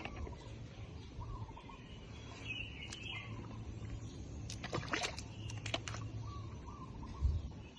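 Birds calling in short wavering chirps over a steady low outdoor rumble, with a few sharp clicks about five seconds in.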